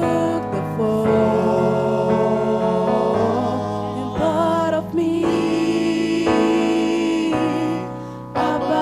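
Slow gospel song sung by a vocal group, voices holding sustained chords with a wavering lead line over changing low notes. The sound fades briefly near the end before the next phrase comes in.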